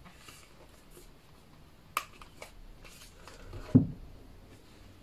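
A thick cardboard board book being handled and set down: a sharp tap about two seconds in, a lighter one just after, then a dull thump near four seconds as the book is laid flat on the table.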